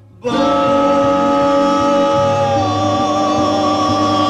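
1950s doo-wop vocal group record: after a brief break in the sound, the voices come back in holding a long harmony chord with vibrato.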